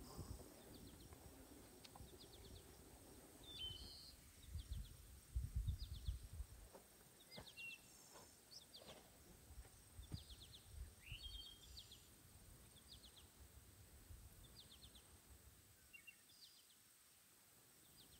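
Small birds chirping and calling on and off against a quiet outdoor background, many of the calls short rapid high trills repeated every second or so, with a few sliding chirps. Low rumbling bursts come and go around 4 to 6 seconds in.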